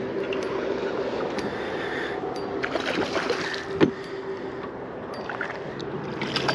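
Steady rush of river water around a drift boat, with a faint steady hum, scattered small clicks and one sharp knock just under four seconds in.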